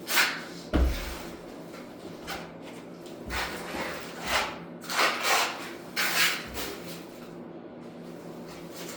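Trowel scraping and spreading pre-mixed thinset mortar across a floor in a series of separate strokes, with a dull thump about a second in.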